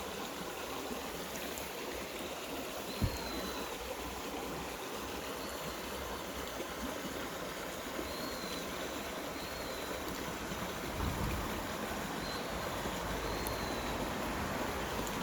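Mountain stream running over rocks, a steady rushing trickle. There is one sharp knock about three seconds in, and faint high chirps come now and then.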